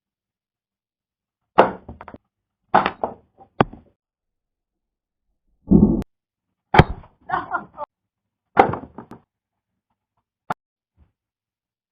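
Toy gun shots and their projectiles striking objects: a string of short knocks and thuds with silence between them, ending in a single sharp click.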